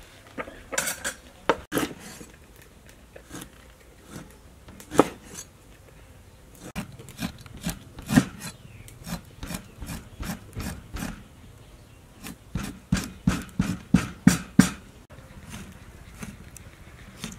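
Meat cleaver chopping eels into chunks on a round wooden chopping board: sharp knocks of the blade striking the wood, scattered at first, then a quick run of chops, about three or four a second, near the end.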